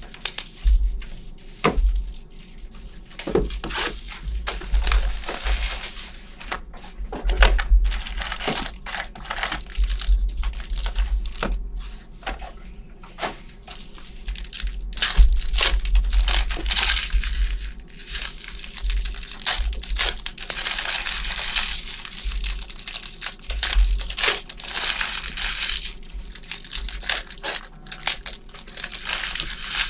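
Trading card pack wrappers being torn open and crinkled, with irregular sharp crackles and rustling and occasional low handling thumps.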